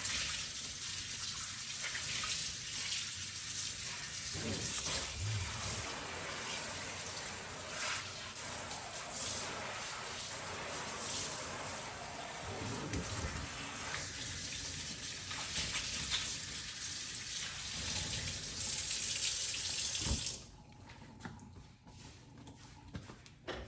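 Kitchen tap running into a sink while things are rinsed, with a few knocks of items against the sink. The water shuts off abruptly near the end.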